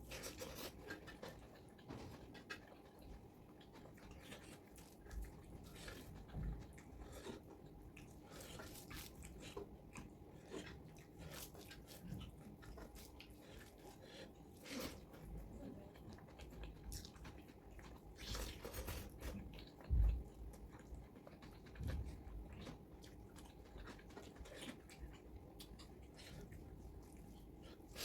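A person eating chicken curry: chewing with many small wet mouth clicks and smacks, and a few soft thumps.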